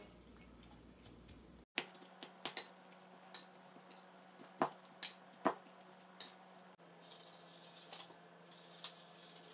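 Metal spoon clinking and scraping against a cut-glass bowl as ground beef and chopped onion are stirred together, sharp clinks coming every half second to a second. Near the end the clinks give way to a softer steady rustle.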